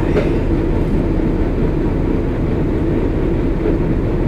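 Uerdinger VT98 railbus's underfloor diesel engines idling steadily while the railcar stands at a station.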